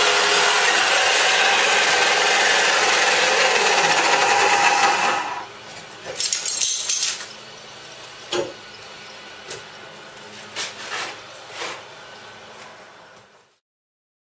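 Macroza wall chaser running and cutting a chase into a hollow clay brick wall, a loud steady grinding noise that stops about five seconds in. It is followed by a loud clatter and several scattered knocks and rattles, then the sound cuts off.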